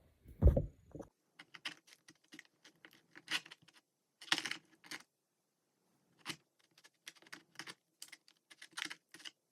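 Small craft-kit pieces being handled on a table: one sharp thump about half a second in, then a string of light, irregular clicks and rattles.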